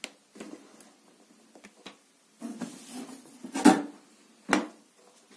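Cardboard packaging rustling and scraping while a plastic-bodied pressure washer is handled out of its box, with a few knocks; the two loudest come about three and a half and four and a half seconds in.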